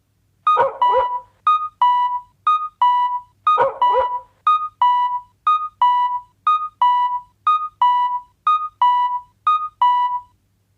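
Animated railroad crossing alarm ringing: a synthesized two-tone 'kan-kan' bell alternating a higher and a lower note, about two strikes a second. A short extra sound joins the first strike and comes again about three and a half seconds in.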